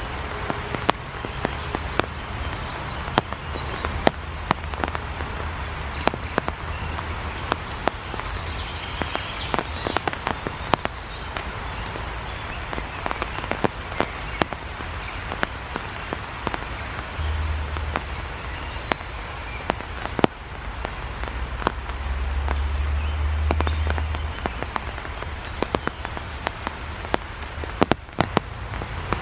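Steady rain, with many sharp clicks of drops landing close by. A low rumble comes in briefly past the middle and again for about two seconds later on.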